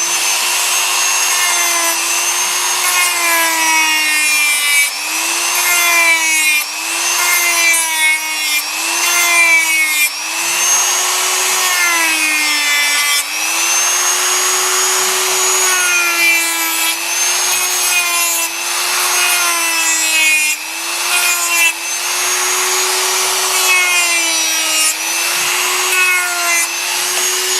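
Small high-speed power tool grinding and shaping HDPE plastic. Its motor gives a steady whine that dips in pitch each time it is pressed into the work, with a rough grinding rasp over it.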